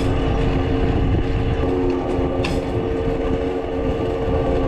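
Farm machinery running steadily: a constant mechanical hum over a low rumble, with no change in speed.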